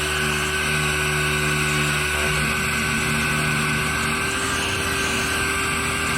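Steady mechanical drone of a machine running at constant speed, with several held tones over an even hiss and no change in level.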